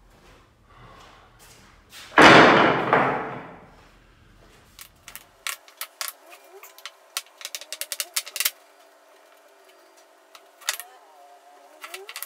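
Wooden maple blocks knocking together: a loud clatter lasting about a second as a pile of cut blocks is set down, about two seconds in, then many light, sharp clicks and taps as the blocks are placed and pushed together one by one on a hard bench.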